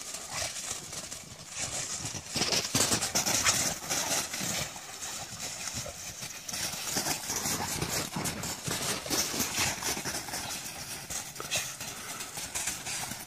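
Dogs' paws and bodies crunching and scuffling through deep snow as two dogs run and wrestle, a steady run of irregular crackling crunches.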